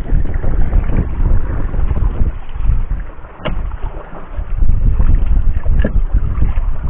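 Wind buffeting the microphone aboard a small boat under sail, a loud low rumble that eases briefly in the middle. A single sharp click about three and a half seconds in, as spider shells knock together in the hull.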